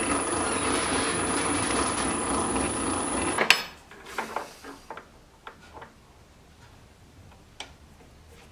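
Small metal lathe running, its chuck spinning a metal part, with a steady high whine; the sound cuts off abruptly about three and a half seconds in. After that come scattered light metal clicks of a hand tap and tap wrench being fitted and handled at the lathe.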